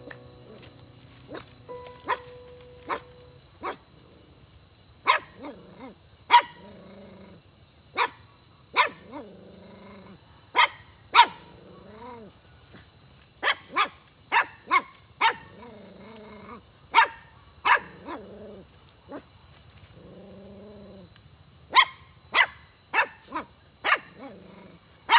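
Puppies barking in short, sharp yaps that come irregularly and often in quick clusters. Between the yaps come softer, longer whining cries that rise and fall in pitch.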